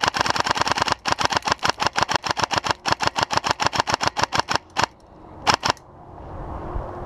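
Electric airsoft rifle firing on full auto: long bursts of sharp clicks at about ten shots a second, with two brief breaks, then two last shots about five and a half seconds in.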